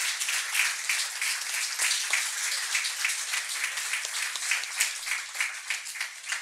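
Audience applauding, with many hands clapping densely and evenly.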